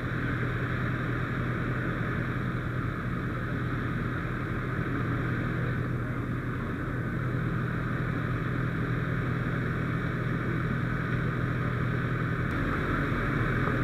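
Fire engine running steadily at the scene, a constant engine-and-pump hum with no change in pitch, while a hose line flows. A hiss of water from a hose nozzle spraying the burning brush comes in near the end.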